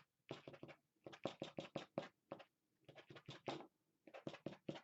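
The edge of a card scraping across wet watercolour paint on paper in many quick, short strokes, grouped in about five bursts. It is lifting paint out to put light texture into painted rocks.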